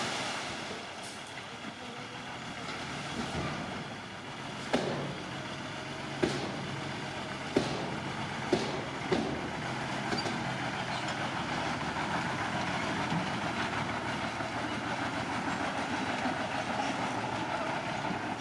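Bulldozer's diesel engine running steadily, with five sharp metallic knocks between about five and nine seconds in.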